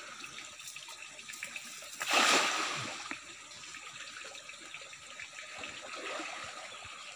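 River water trickling and running steadily, with one loud splash about two seconds in that dies away within a second.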